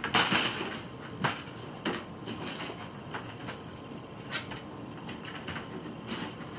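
Baby rabbits hopping and scrabbling on a cloth sheet over a plastic pool floor: a few scattered soft thumps and rustles at irregular intervals, the longest and loudest just after the start.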